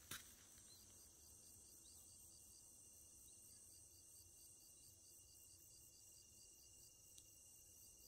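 Faint crickets chirping in a steady, even rhythm, with a thin, steady high trill under the pulses. A soft click comes right at the start.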